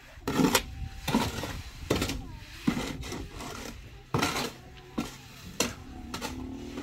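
Irregular clinks, knocks and scrapes of hand tools working fresh concrete, about seven sharp strikes spaced roughly half a second to a second and a half apart.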